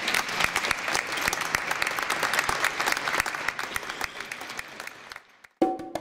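Audience applauding, slowly thinning out and then cut off abruptly near the end, where music with wood-block percussion comes in.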